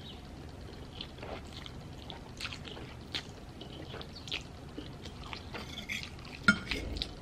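Quiet mouth sounds of a person eating noodles: chewing with scattered small wet smacks and clicks. Near the end comes a few sharper clicks as a metal fork goes back into the plate.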